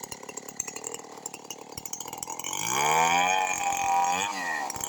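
Chainsaw engine idling with a fast ticking, then throttled up a little over halfway in, its pitch rising and holding at high revs, with a short dip near the end before it climbs again.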